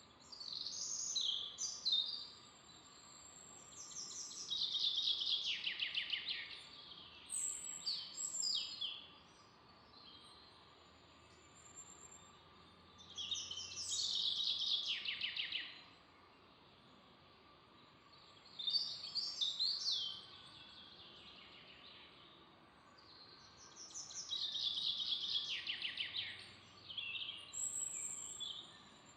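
A songbird singing in the forest: short song phrases, each a fast run of notes falling in pitch, repeated every few seconds with short pauses, with a few higher single calls between them.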